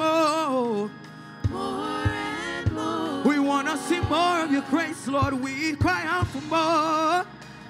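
Live gospel praise-and-worship singing: a male lead voice with female backing singers, sliding and wavering through long held notes, with low thumps of the accompaniment recurring underneath.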